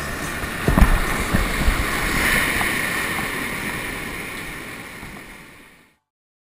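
Whitewater river rushing, with wind buffeting the microphone in a few low thumps about a second in; the sound fades out to silence near the end.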